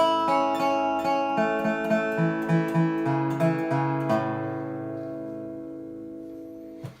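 Dobro resonator guitar played with a Beard capo fitted: a run of picked notes, then a final chord left ringing and slowly fading before it is stopped short just before the end.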